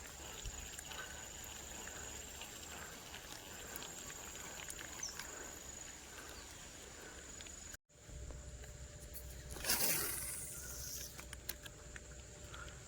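Quiet outdoor ambience with a thin, steady high tone. The sound cuts out for a moment about eight seconds in, and a couple of seconds later a louder rushing swish rises and fades over about a second.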